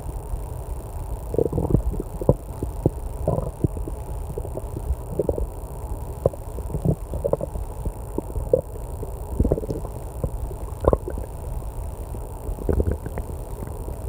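A person's stomach growling loudly: a continuous run of irregular low gurgles and short bubbly pops, sometimes several a second.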